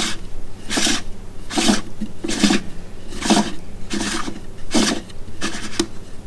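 Rhythmic rasping, rubbing strokes, about one every 0.8 seconds, from parts being handled.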